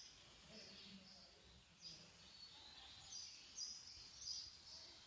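Near silence with faint bird chirps: short high notes, some sliding downward, recurring every half-second or so.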